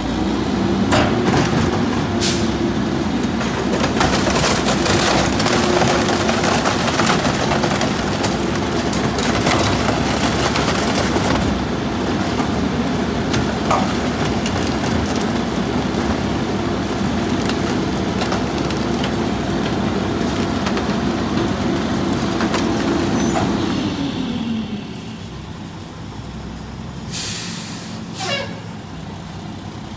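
The Mack LE garbage truck's diesel engine revs up and holds high to drive the McNeilus rear loader's hydraulic packer through a compaction cycle, with knocks and cracks as bulk items are crushed in the hopper. The engine drops back to idle about 24 seconds in. A short sharp hiss of air comes a few seconds later, and the engine begins revving again at the very end.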